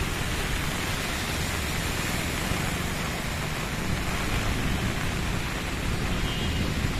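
Heavy rain falling steadily on a flooded road: an even hiss of rain on standing water, with a low rumble underneath.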